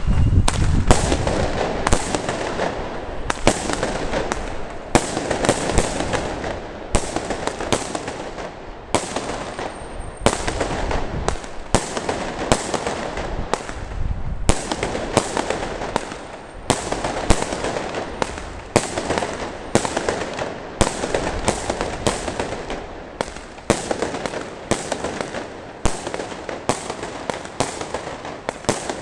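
A 36-shot firework cake firing shot after shot: sharp bangs, roughly one to two a second, over continuous crackling and hissing from the launches and bursts.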